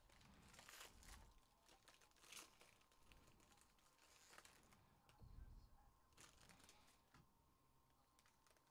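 Faint crinkling of foil trading-card pack wrappers and rustle of cards being handled and stacked, in short scattered rustles.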